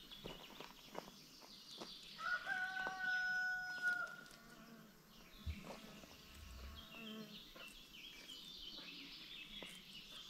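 A rooster crowing once, a long held call about two seconds in, with high chirping calls and scattered small clicks from the flock around it.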